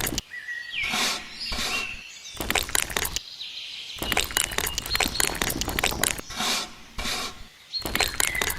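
Repeated bursts of scraping and clicking, like hand work with small hard objects, broken by short pauses, with birds chirping in the background.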